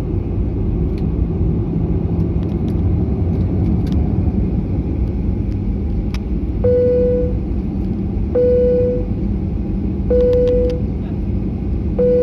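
Steady low rumble of a jet airliner on the ground before takeoff. From about seven seconds in, a short single-pitch beep repeats four times, about every 1.7 seconds.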